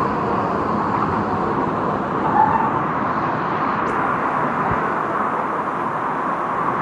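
Steady rush of water flowing through the canyon.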